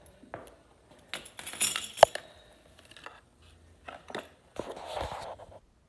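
Small hard objects on a granite kitchen counter clinking and knocking as they are handled, with one sharp knock about two seconds in and a short rustle near the end.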